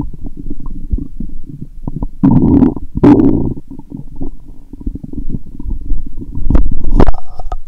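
Stomach and intestines gurgling, a steady run of small squelches with two louder, longer gurgles about two and three seconds in. The bowels are very active after a lot of probiotic lactic-acid drink. Two sharp knocks come near the end.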